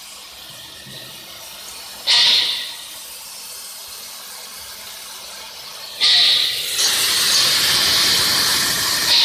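Loud bursts of compressed air hissing over a steady lower hiss. There is a short burst about two seconds in that fades away, then a longer one of about three seconds that starts suddenly around six seconds in.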